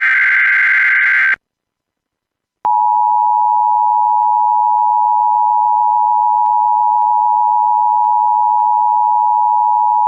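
Emergency Alert System signalling: a short warbling digital data burst of the SAME header cuts off about a second and a half in. After a second of silence the steady two-tone EAS attention signal sounds, two pure tones close together just under 1 kHz, held for about eight seconds. It marks the start of an emergency alert broadcast.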